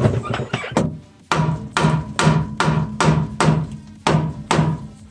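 Background music with a steady percussive beat, about two and a half beats a second, starting after a short break about a second in.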